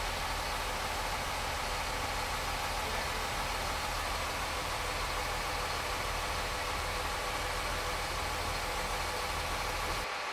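An engine running steadily with a low rumble and no hammer blows. The rumble drops out near the end.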